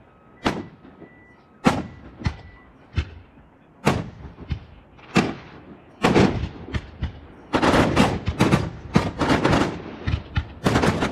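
Aerial firework shells bursting with sharp booms, about one a second at first, then from about halfway a rapid volley of many overlapping bangs.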